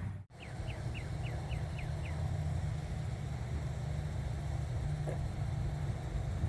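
A steady low rumble of outdoor background noise. About seven quick, high chirps fall in pitch in the first two seconds.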